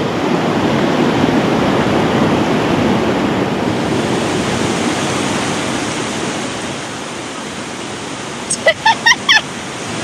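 Mountain stream rushing steadily over a small rocky cascade into a pool. A few short, high pitched calls come near the end.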